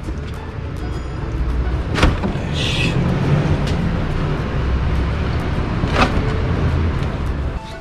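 Plastic engine undercover of an Audi A3 8P being handled and worked loose by hand: a steady low rumble of the panel being moved, with two sharp clicks about two and six seconds in as its fasteners let go.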